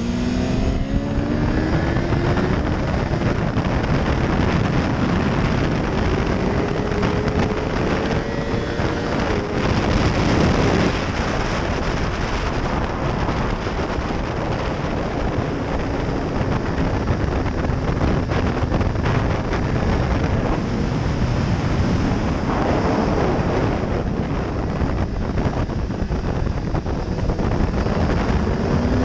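BMW S1000RR inline-four engine running hard at high revs, under heavy wind rush over the microphone. The engine note climbs several times as the bike accelerates, and it is loudest about ten seconds in.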